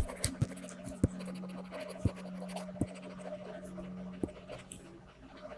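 Pen scratching on paper as notes are written, with a few scattered light taps and a steady low hum underneath.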